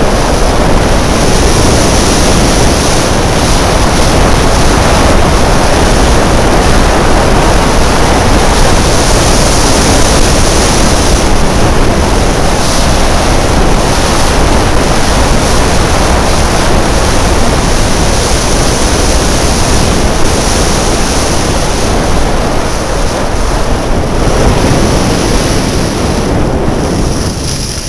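Loud, steady wind rushing over a helmet camera's microphone from a skier's downhill speed. It drops away sharply near the end as the skier slows.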